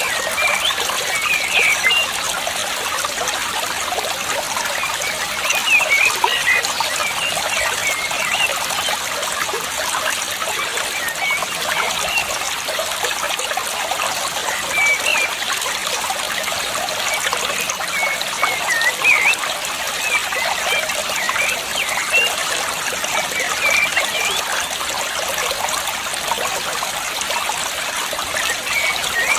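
Water trickling and flowing steadily, with short high bird chirps scattered throughout.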